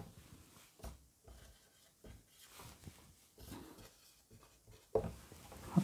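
Quiet small-room tone with a few faint, scattered soft clicks and rubbing sounds, and a slightly louder short sound about five seconds in.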